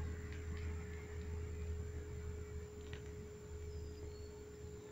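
Soda-can alcohol stove burning out: a low steady rumble from its last flame that weakens after about three seconds, with a few faint ticks, over a steady thin tone.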